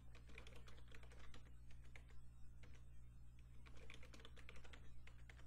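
Faint typing on a computer keyboard: a quick, uneven run of keystroke clicks, over a low steady hum.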